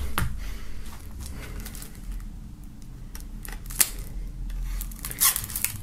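A plastic CD jewel case being handled and its shrink-wrap slit with a small knife: scattered sharp clicks and light scratches, with a sharp click about four seconds in and a quick run of clicks near the end.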